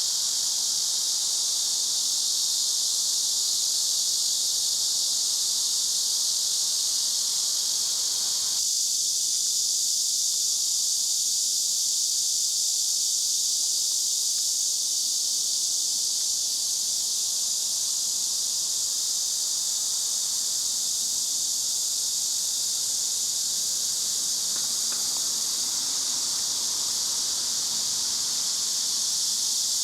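Steady, dense, high-pitched insect chorus droning without a break. Softer background noise beneath it drops away abruptly about nine seconds in.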